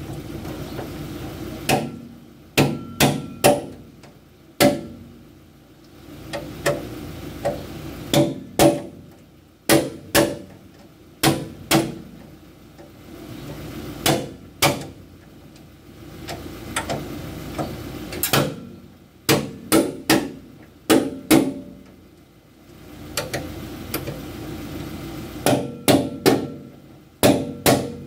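Hammer blows on the steel header of a Kubota DC70 Plus combine harvester. They come in irregular quick groups of two to four with short pauses between, and each blow has a brief metallic ring.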